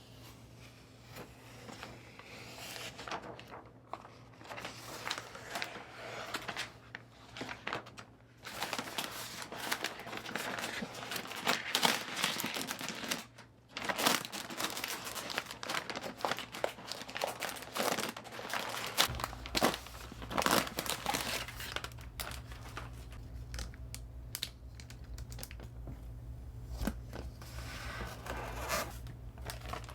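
Packaging wrap crinkling, rustling and tearing as it is handled and pulled off by hand, in irregular bursts. A low steady hum comes in about two-thirds of the way through.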